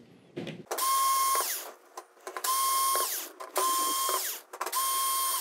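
Electric screwdriver running in four short bursts of just under a second each, a steady whine that winds down at the end of each burst, as it tries to back out a screw that turns out to be stuck.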